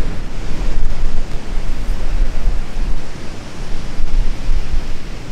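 Wind gusting on the microphone over the steady rush of ocean surf on a beach, with low rumbling buffets that rise and fall.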